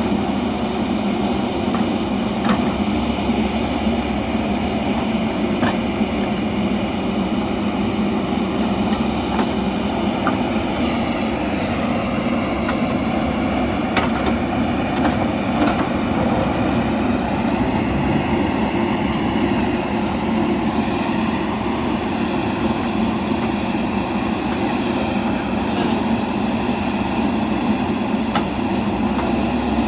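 JCB backhoe loader's diesel engine running steadily under work, with a few short knocks from the machine scattered through.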